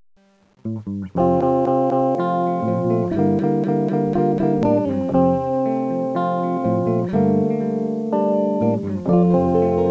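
Ambient music starts about a second in, after a moment of silence: many layered, pitched notes that change every fraction of a second.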